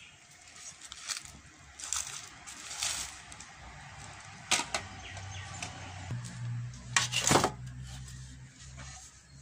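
Metal cooking pots and a steamer knocking and clinking as they are lifted and handled: several separate knocks, the loudest about seven seconds in, with a low steady hum underneath in the second half.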